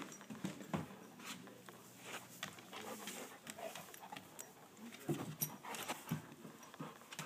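A golden retriever and a cat play-fighting close up: soft, irregular rustling of fur and cloth and light taps and knocks of paws and bodies on a wooden floor, a few louder knocks about five and six seconds in.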